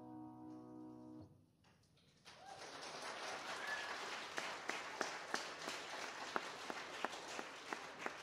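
A grand piano's final chord rings and is cut off about a second in. After a short pause, the congregation breaks into applause, with individual claps standing out.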